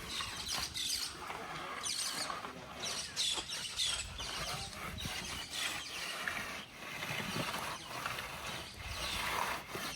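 Hand tools working on masonry: irregular scraping and tapping strokes, a few each second.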